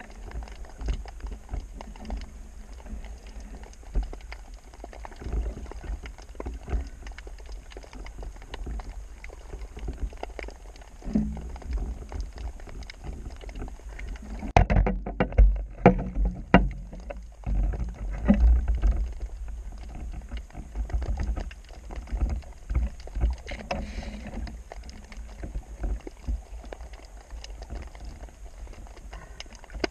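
Muffled water sloshing with irregular knocks and bumps against the camera. The sound gets louder and busier for a few seconds in the middle, then settles back.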